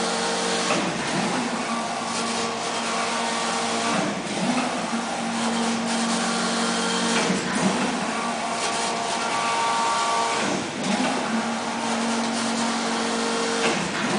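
Intarsia circular knitting machine running: a steady mechanical hum and clatter whose tone shifts in a regular cycle about every three seconds.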